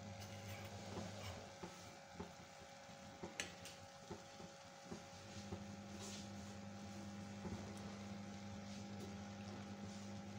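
A metal spoon stirs cooked mash dal in a metal pot, with a few faint scrapes and clicks against the pot over a steady low hum.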